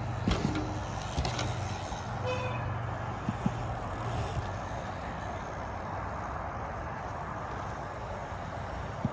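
Steady outdoor background noise, like distant traffic or wind, with a few faint knocks.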